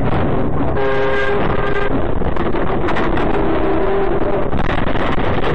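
Loud, steady road and traffic noise. A vehicle horn sounds for about a second near the start, and a lower, wavering tone follows for about two seconds.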